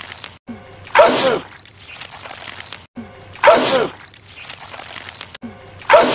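A man sneezing, the same loud sneeze repeated about every two and a half seconds, twice and then again at the very end. Each sneeze is a short falling voiced 'achoo' with a sharp hiss, followed by a softer trailing noise.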